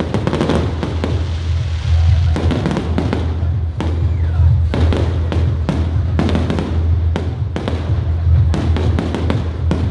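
Aerial fireworks exploding in clusters of sharp bangs, several a second at times, with music and its steady heavy bass playing underneath.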